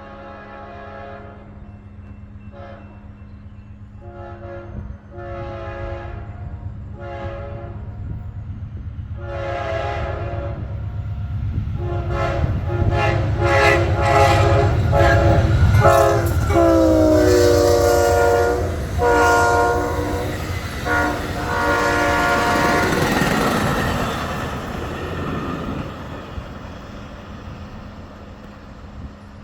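Amtrak passenger train approaching and passing at speed, its locomotive horn sounding a long run of blasts and quick repeated taps. The horn's pitch drops as the locomotive goes by a little past halfway, over a rising diesel rumble. The passenger cars then rush past with a roar that fades away.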